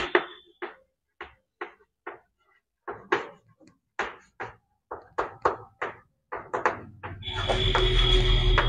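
Chalk tapping and scraping on a blackboard while words are written, in short separate strokes about two a second. About seven seconds in, a steady, louder noise sets in, with a low hum and a thin high tone.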